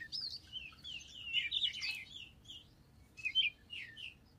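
Small birds chirping in the background: quick runs of short, high, sliding chirps, busiest in the first two seconds and again around three seconds in.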